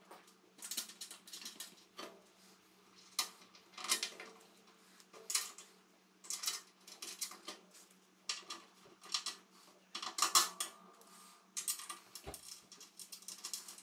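Irregular small metallic clinks, clicks and scrapes of bolts, washers and a hand tool being worked at the centre joint of a plow blade while its centre rubber strip is fitted. A steady low hum runs underneath.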